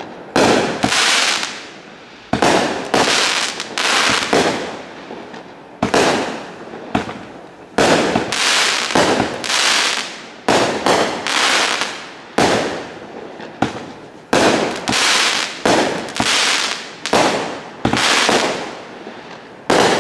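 A 19-shot firework barrage cake (Diamond Fireworks Storm Shadow) firing shot after shot, about one a second. Each shot is a sharp bang from the aerial burst that trails off over about a second.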